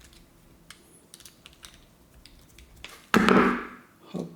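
Small scattered clicks and ticks from handling the plastic plug body and its screws while it is being taken apart. About three seconds in, a brief louder sound cuts in, followed by a smaller one near the end.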